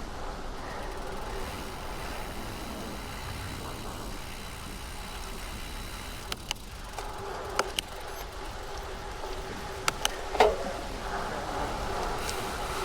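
Bicycle riding on bumpy wet tarmac: steady tyre and wind noise, with a few sharp clicks and knocks from the bike over the bumps, the loudest about ten seconds in.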